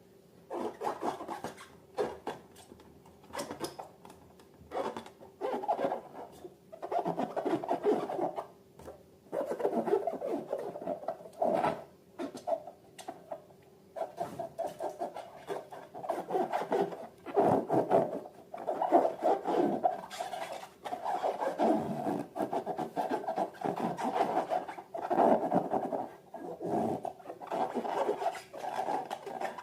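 Hands working slime and rubber balloons, making irregular bursts of rubbing and squishing, each lasting up to a couple of seconds with short pauses between.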